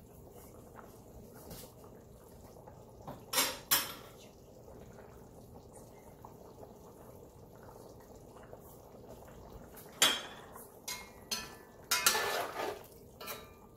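Metal spoon scraping and knocking against a pot of simmering chicken curry: a couple of sharp strokes about three seconds in, then a cluster of scrapes and clinks from about ten seconds on, over a faint steady simmer.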